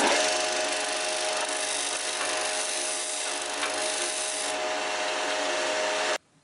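Disc sander running with 100-grit paper, grinding the cutting edge of a steel twist drill bit to resharpen it: a steady abrasive hiss over a steady motor hum, cutting off suddenly near the end.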